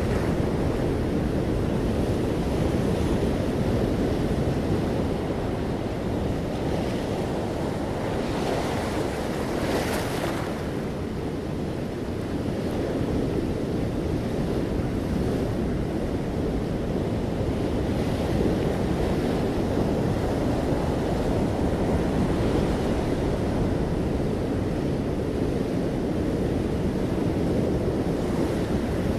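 Ocean surf: a steady low rush of waves, with one brighter hiss of breaking water about ten seconds in.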